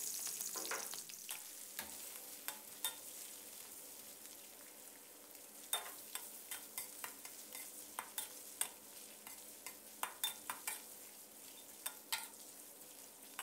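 Fresh shrimp sizzling quietly in oil in a metal wok, the sizzle fading over the first few seconds. A metal ladle scrapes and clicks against the wok as the shrimp are stir-fried, with the clicks coming thicker in the second half.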